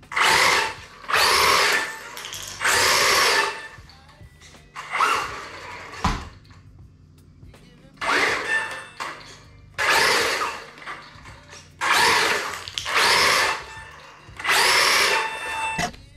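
1/16-scale brushless 4WD RC truck driven flat out on a tiled floor: about eight short bursts of motor whine as the throttle is opened and released, each under a second long. There is a single knock about six seconds in.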